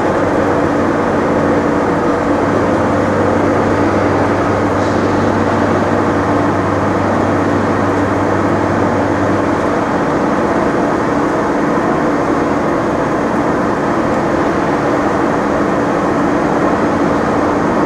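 Steady city traffic noise mixed with a mechanical hum, one lower part of which stops about ten seconds in.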